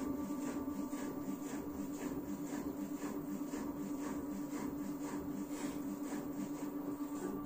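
LG F4DV509S0E washer-dryer running empty in its spin cycle with the drum turning slowly: a steady hum with a regular pulse about three times a second.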